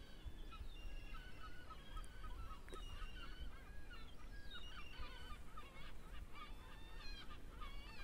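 A flock of birds calling: many short, overlapping honking calls, growing denser about halfway through, over a low steady rumble.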